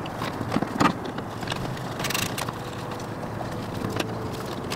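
Hand tools working the battery terminals: irregular metallic clicks and taps as a 10 mm terminal bolt is loosened, with a short scrape a little after two seconds in.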